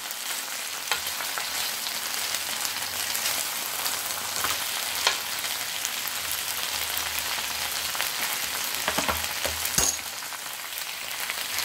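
Chicken breast fillets sizzling and crackling steadily in a hot ridged grill pan, with a few sharp clicks and knocks as the pieces are moved with a utensil against the pan.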